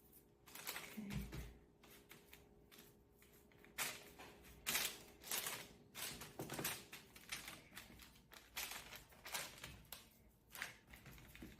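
Hands shaping bread dough into a loaf: irregular soft rustles and taps, with a low thud about a second in.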